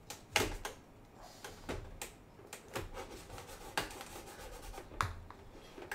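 Plastic scale-model hull halves rubbing and clicking as they are pressed together and worked into alignment by hand: a faint scraping with scattered sharp clicks, the loudest about a third of a second in.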